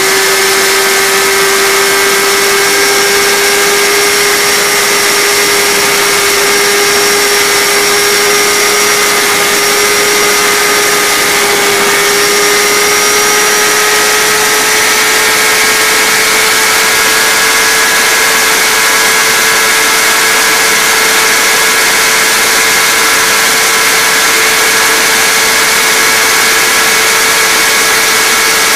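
Vehicle engine held at high revs in a steady, high-pitched drone, its pitch creeping slowly upward, over a constant rush of noise.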